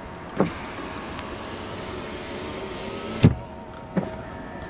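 Rear door power window motor of an Audi A8 running with a steady whir, which stops with a loud thunk about three seconds in. Short switch clicks come near the start and again about four seconds in.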